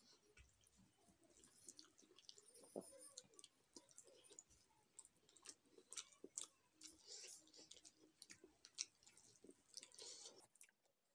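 Faint chewing of rice and curry by hand-eating, with scattered small wet mouth clicks and the soft squish of fingers mixing rice on a steel plate.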